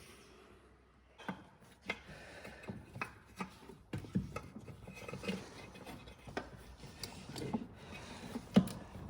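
Hand-handling noises of parts and tools: rubbing with irregular clicks and knocks, starting about a second in, with a sharper knock near the end.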